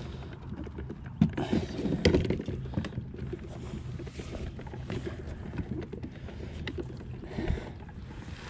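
Pedal-driven fishing kayak under way on calm water: a steady low hum of water along the hull, with scattered small clicks and knocks from the kayak and gear, the sharpest about a second in and another near two seconds.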